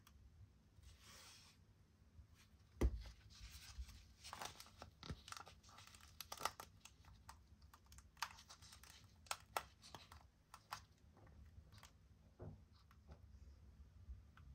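Clear plastic safety goggles being turned and flexed in the hands: faint scattered clicks, rubbing and scratching of fingers on the plastic frame, with one sharper knock about three seconds in.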